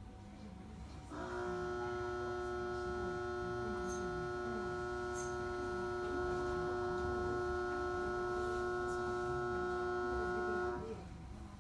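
Steady electrical hum from the stopped electric train's onboard equipment. It sets in about a second in, holds one unchanging pitch, and cuts off shortly before the end, over a low rumble.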